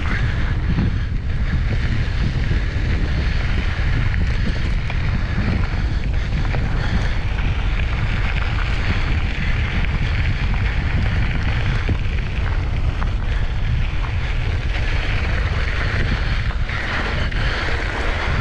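Wind buffeting the microphone of a rider's camera on a mountain bike moving along a dry dirt singletrack, with the knobby tyres rolling over dirt and gravel. The noise is loud and steady throughout.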